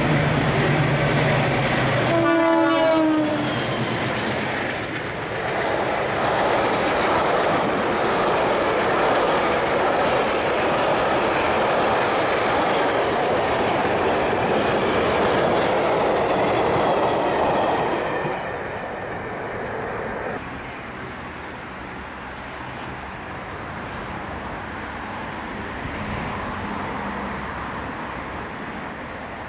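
MLW diesel-electric freight locomotive approaching with a low engine drone, giving one short horn blast about two seconds in. Its freight wagons then roll past, rumbling and clattering over the rail joints. The train noise drops away after about eighteen seconds.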